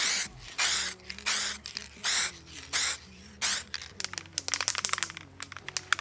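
Aerosol spray can of plastic primer sprayed in about six short bursts, roughly one every 0.7 s, followed by a quick run of light clicks.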